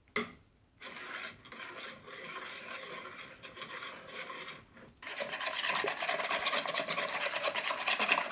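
Small wire hand whisk beating eggs and flour into pancake batter, its wires scraping against the bowl in quick rhythmic strokes. There is a short knock at the start and a brief pause about five seconds in, after which the whisking is faster and louder.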